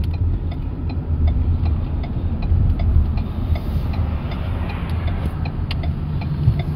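Car driving, heard from inside the cabin: a steady low rumble of engine and road noise, with faint regular ticks.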